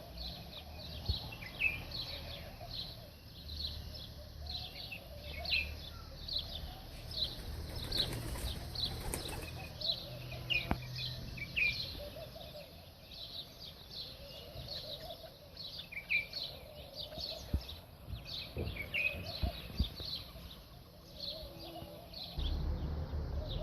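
Small birds chirping: a continuous run of short, high chirps, several a second, over a low background rumble, with a few faint knocks.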